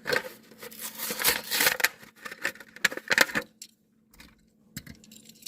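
A Hot Wheels blister pack being torn open by hand: crinkling, crackling plastic and cardboard with sharp clicks, dying down after about three and a half seconds to a few light clicks.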